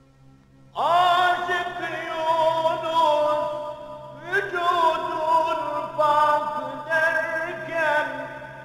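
A male voice singing a slow chant with long, wavering held notes on the soundtrack. It comes in about a second in and starts a new phrase with an upward slide a little before the middle.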